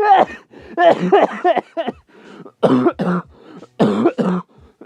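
A person coughing and hacking in about four loud bouts.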